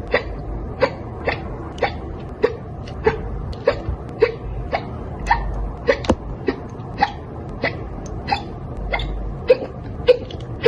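A girl hiccuping over and over, about two short, sharp hics a second. The hiccups were brought on by drinking soda.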